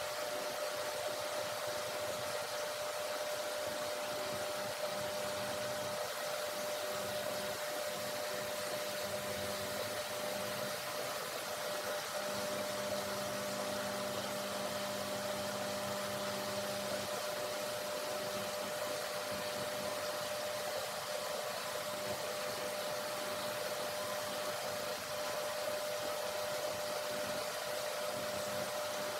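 Steady hiss with a constant high-pitched whine running under it, like a small fan or electrical equipment. A faint low hum rises for a few seconds in the middle.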